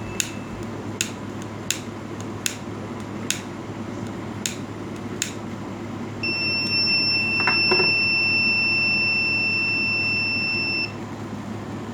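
Fire alarm sounding one steady high-pitched tone for about four and a half seconds, starting about six seconds in and cutting off suddenly. Before it come sharp clicks, about one a second.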